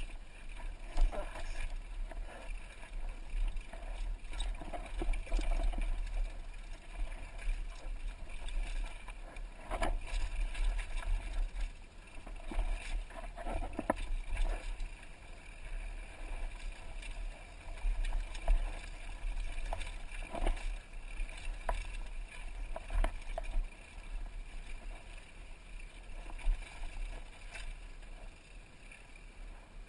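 Downhill mountain bike riding over a rocky dirt trail: a steady wind rumble on the helmet camera's microphone, with tyres on dirt and rock and frequent sharp knocks and clatters as the bike hits rocks. The knocks thin out near the end as the trail smooths.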